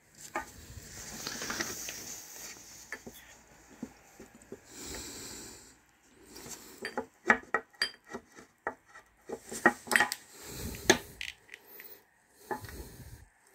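Gold metal perfume caps and glass perfume bottles being handled and set down on a table: rubbing and scraping for the first couple of seconds, then a run of sharp clicks and taps.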